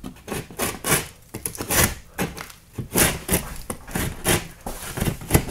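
Drywall panel being handled and shifted against the wall framing: a run of irregular knocks, bumps and scrapes of board on wood.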